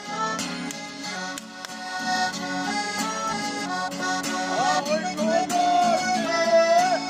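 Accordion playing a tune with a steady rhythm.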